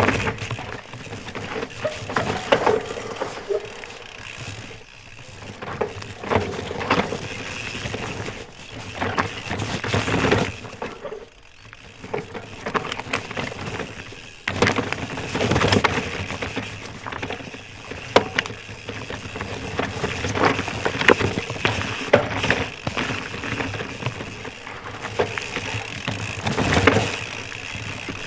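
Nomad LT mountain bike ridden hard down a rough, rocky forest trail: tyres crunching over dirt, rocks and roots, with repeated clattering knocks from the bike. The sound swells and fades in waves, loudest where the bike is closest.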